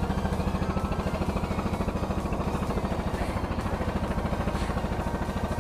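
Engine aboard a bagang fishing boat running steadily, with a fast, even pulse.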